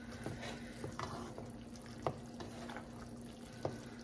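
Pasta in a creamy tomato sauce simmering in a pan: a faint bubbling haze with a few soft pops, over a steady low hum.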